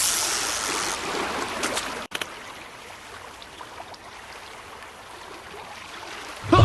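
A steady rush of running water, louder for the first two seconds, then dropping suddenly to a quieter, even rush.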